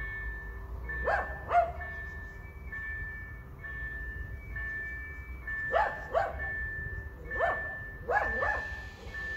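A dog barking about seven times in twos and threes, over the low rumble of a slow-moving electric freight train. A steady high tone sounds in short repeated stretches throughout.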